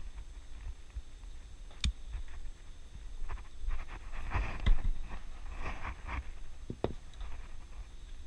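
Pliers working a hook out of a small catfish held in a cloth: scattered sharp clicks and scrapes of metal, cloth rustling and short knocks on the deck, the loudest knock about four and a half seconds in.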